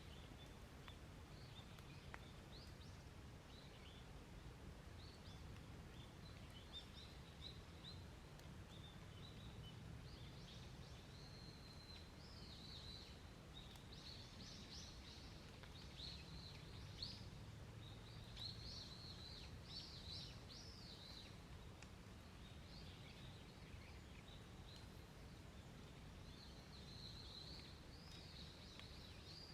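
Wild birds singing faintly in the countryside: many short chirps and quick trills, busiest around the middle and again near the end. A faint steady low rumble sits underneath.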